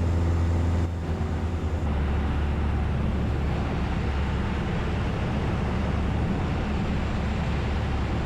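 Piper PA28-181 Archer's four-cylinder Lycoming engine and propeller droning steadily in flight, heard in the cockpit. About a second in, the drone drops slightly in level and turns rougher and less even.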